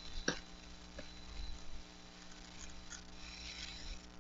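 Quiet handling of a paperback book: a couple of light taps, then soft paper rustling as pages are turned.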